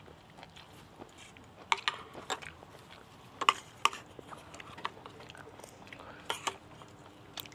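Cutlery clicking and scraping against a plate as food is scooped up, in a handful of sharp, scattered taps.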